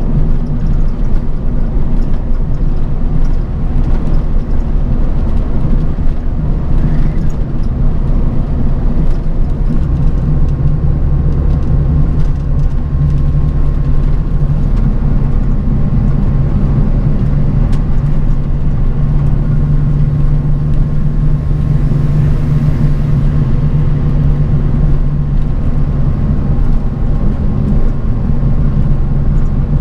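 Bus on the move: a steady low engine drone mixed with road noise, with a brief swell of hiss about two-thirds of the way through.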